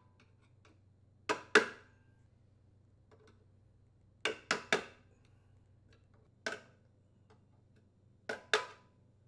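A hammer tapping a flathead screwdriver against the sheet-metal locking tabs of a Briggs & Stratton lawn mower engine's muffler mounting bolts, bending the tabs out of the way. Eight sharp metallic taps with a short ring, in small groups of one to three.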